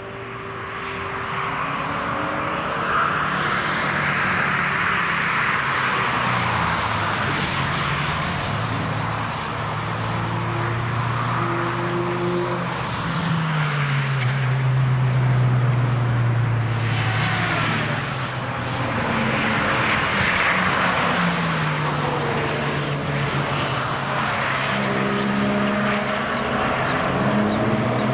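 Several cars driving past at speed on a racetrack, one after another and overlapping, their engine notes climbing and dropping in pitch as they accelerate and pass, over the rush of tyres and wind.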